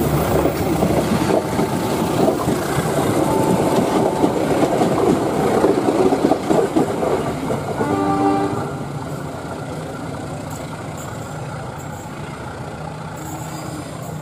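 Passenger train coaches passing close by, wheels clattering loudly over the rails. A short train horn sounds at about eight seconds as the last coach goes by, and the sound then drops to a quieter rumble as the train pulls away.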